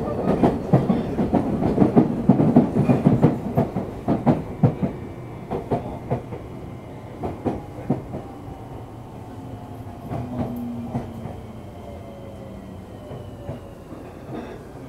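Running sound of a Tokyu 3000 series electric train, heard from on board. Wheels clatter loudly over rail joints and points for the first few seconds, then the ride goes quieter as a motor whine falls steadily in pitch while the train slows.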